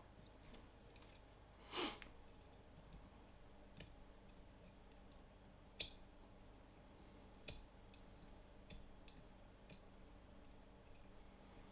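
A few small sharp clicks, one or two seconds apart, against near silence: fly-tying scissors snipping off the excess wing fibers at the head of a tube fly. A brief soft rustle about two seconds in.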